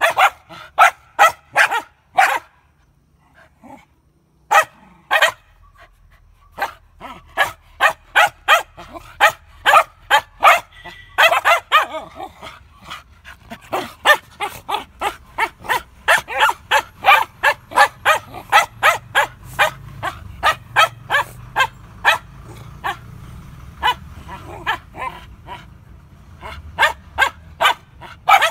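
Samoyed dogs barking in fast, repeated short barks, about two or three a second, with a brief lull a few seconds in. Their barking carries on as they wrestle with each other.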